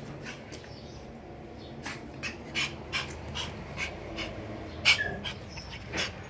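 Shiba Inu puppy panting close by in quick, even breaths, with one sharp click near the end.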